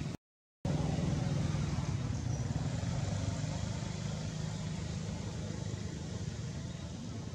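Steady low rumble of motor-vehicle noise, like nearby road traffic, which drops out completely for about half a second near the start.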